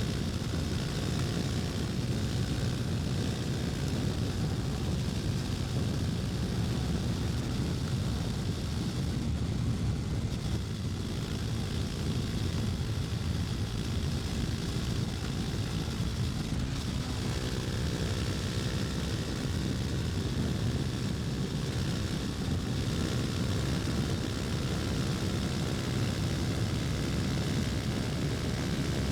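KTM Duke 250's single-cylinder four-stroke engine running steadily as the motorcycle is ridden, a constant low rumble. About halfway through, its engine note stands out more clearly.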